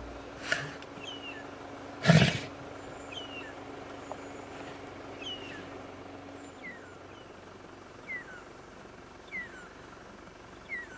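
Quiet bush ambience. About two seconds in comes one short, loud growl from a male lion at his kill, with a fainter sound about half a second in. A bird repeats a short falling chirp about once a second.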